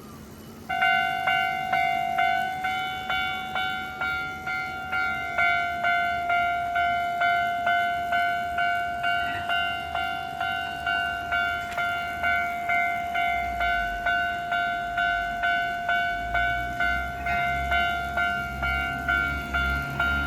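Japanese railway level-crossing warning bell starting suddenly about a second in and ringing on in an even, repeating pulse of about one and a half strikes a second. A low rumble joins from about two thirds of the way through.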